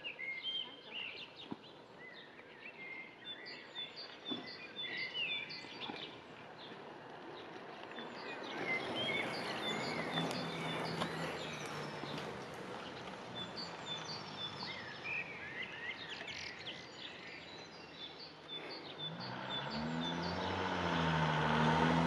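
Outdoor birdsong: several small birds chirping and whistling. From about halfway a low engine hum comes in, and near the end a motor vehicle grows louder, its pitch rising and falling, and becomes the loudest sound.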